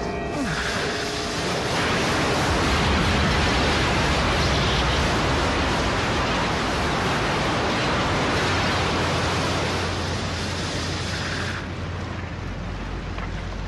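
Rushing-water sound effect from an animated fight: a loud, steady torrent-like rush that swells about two seconds in and falls away near the end, leaving a low rumble.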